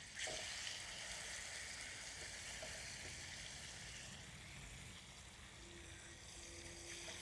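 Chicken thighs sizzling steadily in butter and oil in a hot skillet, the sizzle swelling up just after the start and then holding even.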